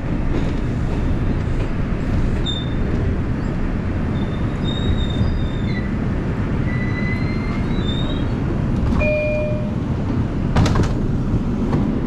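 New York City Subway 5 train running along the track: a steady rumble of wheels and car, with brief thin wheel squeals at several pitches and a sharp knock about ten and a half seconds in.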